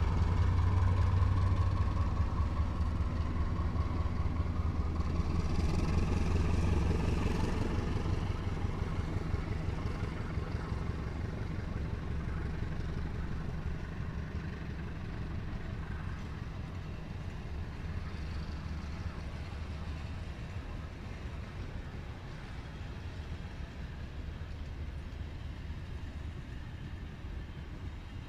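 Diesel-hauled passenger train passing on the main line: the rumble of the locomotive's engine and the wheels on the rails is loudest in the first several seconds, then fades slowly as the train moves away.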